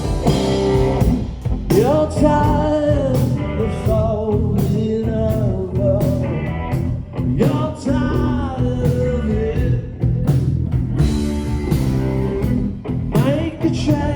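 Live blues-rock band playing: an electric guitar lead line with bending notes over bass guitar and a drum kit.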